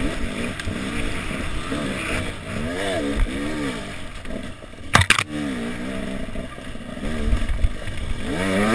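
Enduro motorcycle engine revving up and easing off again and again as the rider works the throttle over rough dirt, heard from an onboard camera. A sharp knock about five seconds in is the loudest moment.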